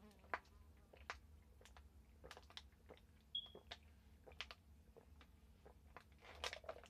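Faint sounds of someone drinking from a plastic water bottle: scattered small clicks and crinkles of the plastic and swallows, with a slightly louder cluster near the end.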